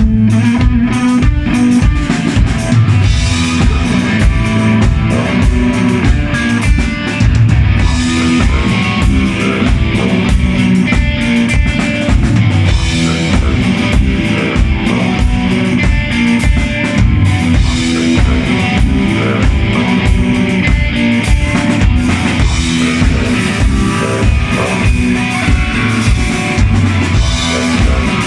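Rock band playing: a steady driving drum beat with bass and guitar.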